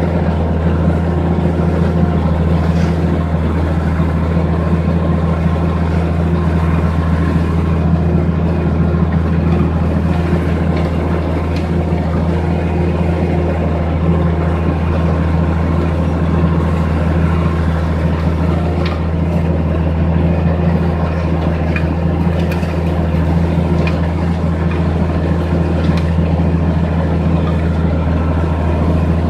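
Allis-Chalmers 190XT tractor engine running at a steady idle, a low even drone that holds the same pitch throughout, after its rebuilt starter got it going again.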